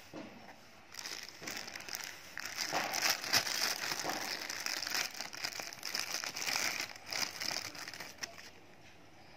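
Plastic packaging crinkling and rustling as a watch is unwrapped and pulled out of its box, starting about a second in and dying down near the end.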